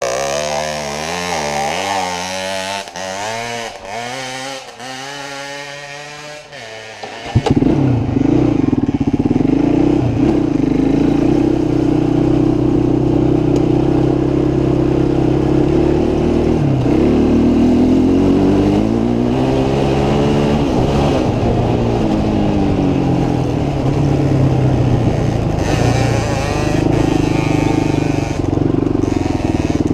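Motorcycle engine running, quieter with a wavering pitch for the first few seconds, then suddenly much louder and steady from about seven seconds in. Its pitch dips briefly a few times and rises and falls once, as the throttle changes.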